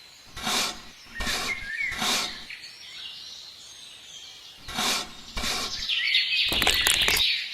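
Birds chirping in the background, with a few short rustling sounds and a louder noisy stretch near the end.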